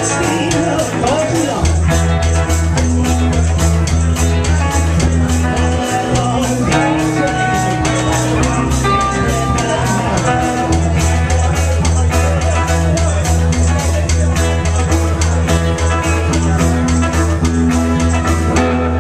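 Live band with guitars and drums playing an up-tempo song, the drums keeping an even beat under a low bass line.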